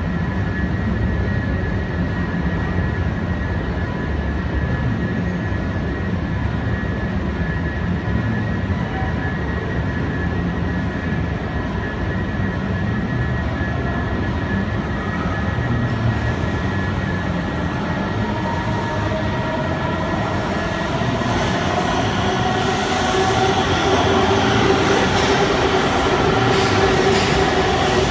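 Washington Metro 7000-series subway train approaching and pulling into an underground station. A steady low rumble for the first half swells from about two-thirds in, as a hiss and whining tones come in and the cars run alongside.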